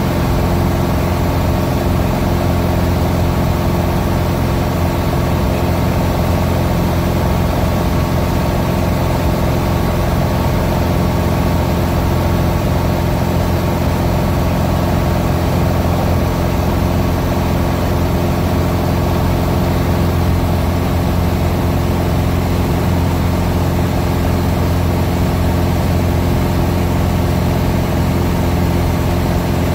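Small aircraft's piston engine and propeller running steadily at cruise, heard from inside the cabin: a constant hum made of many steady tones, unchanging in pitch and loudness.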